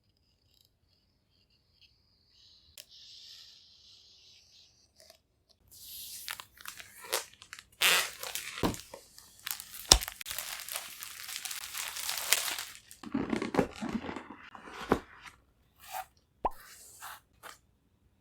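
Packaging being handled and unwrapped: crinkling and tearing of wrapping, with a few sharp knocks and clicks. It is loudest from about six to thirteen seconds in.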